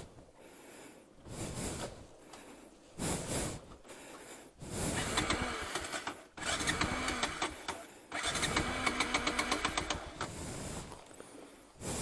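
Bajaj Pulsar NS200's single-cylinder engine being turned over by its electric starter in several attempts, the longest three back to back in the second half, with a quick, even pulsing. The engine cranks but does not catch: the bike has failed to start after stalling off-road in the rain.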